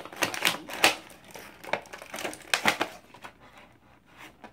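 Stiff clear plastic blister packaging on a cardboard-backed toy box crackling and clicking as it is squeezed and pried at. Quick runs of sharp clicks fill the first three seconds, then they thin out.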